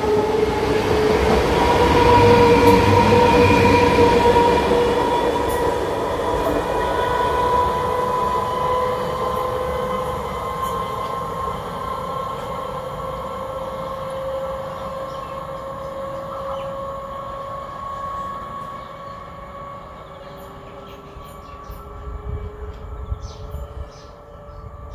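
Electric multiple-unit suburban train running along the platform and drawing away, its wheels and running gear giving a steady whine with slowly drifting tones, fading gradually as it recedes.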